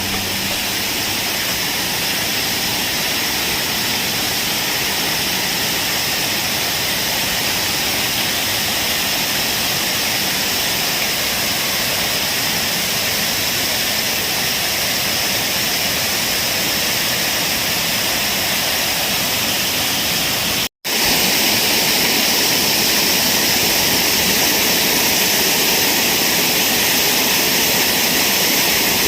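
A waterfall's steady rush of falling water. It cuts out for an instant about 21 seconds in and comes back slightly louder.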